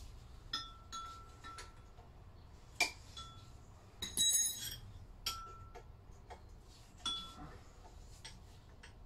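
Metal hand tools such as spanners clinking and ringing as they are picked up and handled, about half a dozen separate clinks, the loudest a longer ringing clink about four seconds in.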